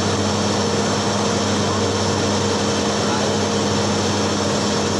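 A TIG welding machine running: a steady electrical hum under an even hiss, with no change in level.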